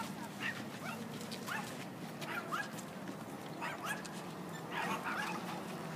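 Short, sharp animal calls repeated irregularly, several a second at times, each rising quickly in pitch, over a faint steady low hum.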